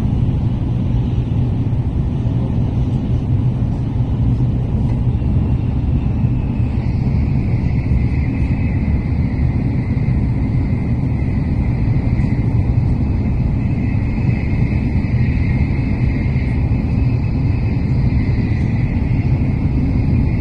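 Steady running rumble heard inside a Tokaido Shinkansen passenger car at speed, deep and even, with a faint high hiss over it.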